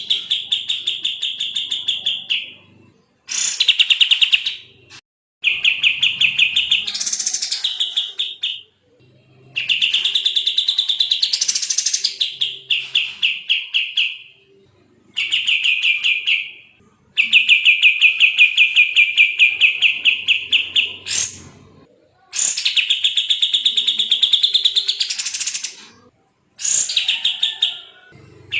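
Kapas tembak songbird singing in fast, tightly packed trills: about eight bursts of rapidly repeated notes, each lasting one to five seconds, with short pauses between.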